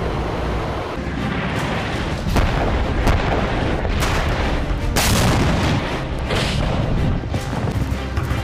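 Heavy booms of explosions over music, with sharp hits coming about once a second from around two seconds in, above a constant deep rumble.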